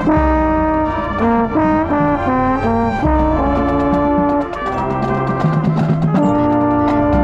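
Marching band brass playing a loud passage of held chords that shift every second or so, with trombones and trumpets on top and low brass holding bass notes underneath. A run of percussion strikes comes in across the second half.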